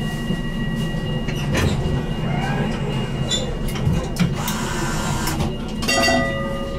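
BN GTL8 tram's low rumble, with scattered clicks and knocks. A set of steady tones comes in about six seconds in.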